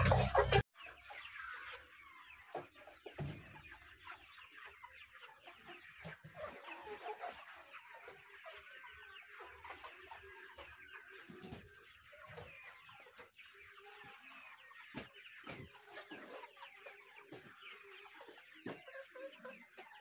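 A flock of brown hens clucking quietly, with many short, faint calls overlapping throughout.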